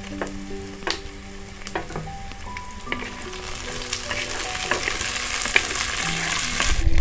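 Chopped tomatoes dropped into hot oil with frying onions and garlic, then sizzling as a wooden spatula stirs and scrapes against the pot, with scattered clicks. The sizzling grows louder over the second half and stops abruptly near the end.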